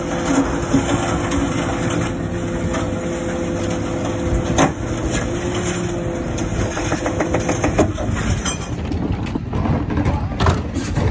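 Refuse truck's Olympus body compaction mechanism cycling under hydraulic power, the sweep blade and packer plate pushing mixed recycling into the body. A steady hum runs under it with a few sharp knocks, and the hum stops about eight seconds in, followed by some clunks.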